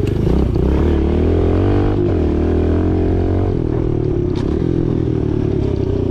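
Kawasaki 110cc pit bike's small single-cylinder four-stroke engine running under throttle while being ridden over a bumpy dirt track. The revs climb over the first couple of seconds, then hold fairly steady.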